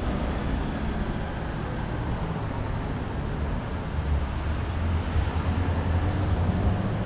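City street traffic noise, with a vehicle engine running close by; its steady low hum grows stronger about halfway through.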